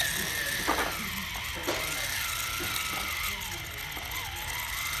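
Small electric gearmotor on a ping pong ball pickup robot whirring with a steady high whine, its pitch wavering a little under load as its collector drum scoops up ping pong balls. A few short plastic clicks sound over it.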